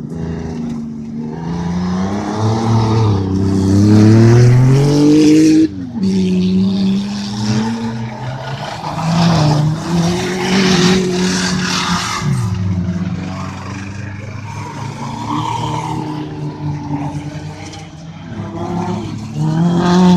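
Autocross race cars' engines at full effort on a dirt track: the revs climb steadily for a few seconds, drop suddenly about six seconds in, then rise and fall again and again as the cars power through the turns.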